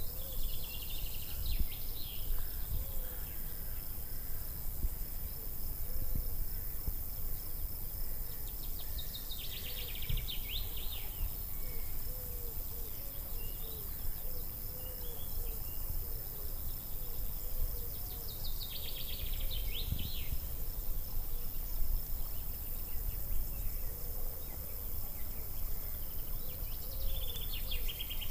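Outdoor park ambience: a songbird singing the same short phrase, a run of notes ending in a quick trill, about every nine seconds, with fainter chirps in between, over a steady low rumble.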